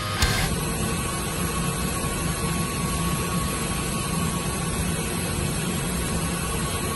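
CNC machining center running with a billet aluminium triple tree in its vise: a steady rushing hiss, a constant high whine and a low hum.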